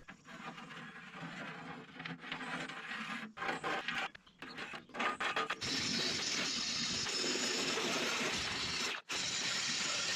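Intermittent scraping and clattering of steel, then from about halfway in an angle grinder runs steadily, grinding old weld off the bucket's steel plate. The grinding cuts out for a moment near the end.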